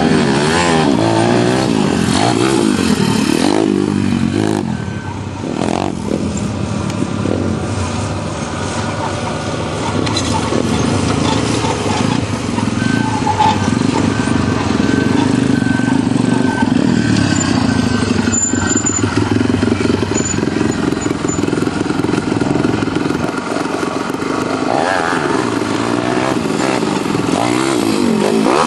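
Motocross dirt bike engines revving and running, rising and falling in pitch with the throttle, with a busier stretch of revving at the start and again near the end.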